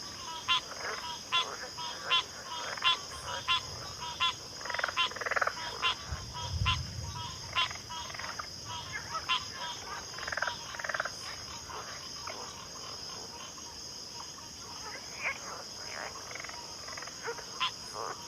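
Chorus of frogs calling: short, sharp, clicking calls repeated several times a second in the first half and more sparsely later, over a steady high-pitched insect drone. A brief low rumble comes about six and a half seconds in.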